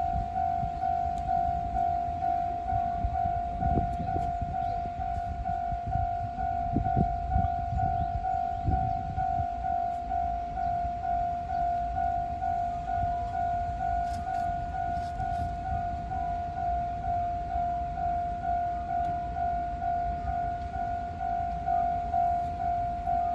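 Japanese level-crossing warning bell ringing steadily, about two rings a second, over a low rumble that swells briefly a few times.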